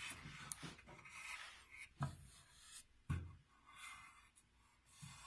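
Faint scraping and rubbing, with two light knocks about two and three seconds in.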